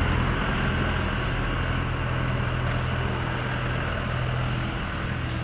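Steady low machine hum with a constant rushing noise over it.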